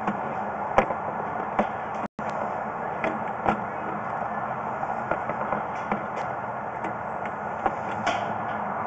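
Steady running noise with irregular clicks and knocks as a sewer inspection camera's push cable and reel are fed in and pulled back. The sound cuts out for an instant about two seconds in.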